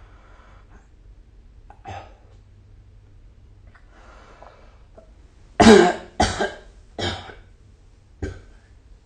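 A sleeping person coughs four times in a row, starting about halfway through. The first cough is the loudest and the rest fade, after a faint breath earlier on.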